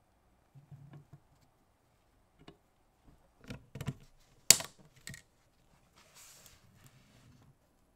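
Small clicks and taps of diecast metal model-car parts being handled and fitted together, with one sharp click about four and a half seconds in and a short rustle about six seconds in.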